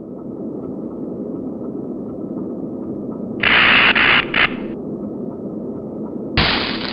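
A low, steady rumbling drone, broken about three and a half seconds in by a loud burst of static-like hiss that cuts in and out. A thump near the end brings on another loud hiss.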